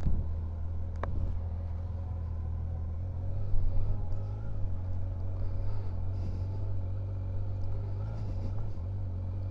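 Kawasaki Versys 1000 SE's inline-four engine running steadily as the motorcycle rolls slowly along, heard from the rider's seat. A single short click about a second in.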